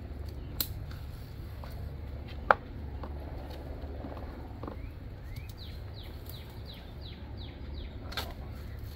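A few sharp metallic clicks from a ratchet strap's steel hook being worked loose from a wooden hive box, the loudest about two and a half seconds in, over a steady low rumble, with small birds chirping.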